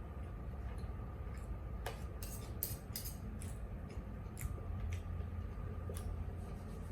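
Spoon and fork clinking against a plate in scattered light clicks, bunched a couple of seconds in, over a low steady hum.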